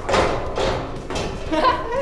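Footsteps thudding on the treads of a metal spiral staircase, about two steps a second as someone climbs. A short pitched sound comes in near the end.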